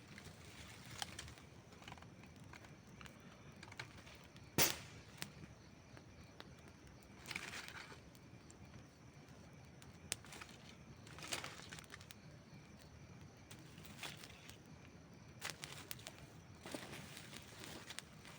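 Campfire burning with a low steady hiss and irregular crackling, sharp pops from the burning wood. The loudest pop comes about four and a half seconds in.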